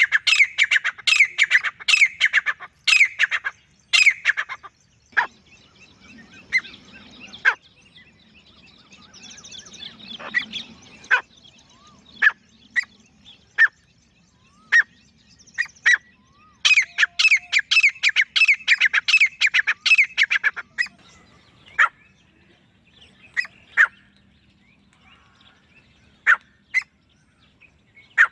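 Male grey francolin calling: a fast run of loud, sharp, repeated notes at the start, then scattered single notes, then a second fast run about sixteen seconds in, followed by a few single notes.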